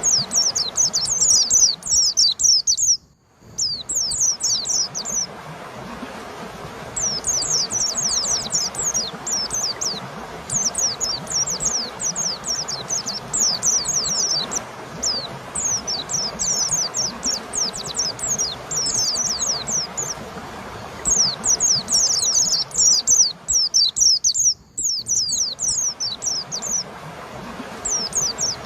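A white-eye (pleci) singing long runs of rapid, high, downward-slurred chirping notes over a steady hiss. The song breaks off briefly twice, about 3 seconds in and near 24 seconds.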